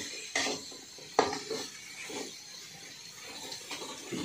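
A metal spatula scraping and clinking against an aluminium wok while petai beans are stir-fried. A few sharp scrapes come in the first two seconds, then lighter taps.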